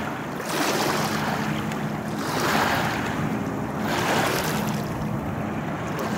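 Water washing and splashing in slow surges, over the steady low hum of a boat engine running on the river.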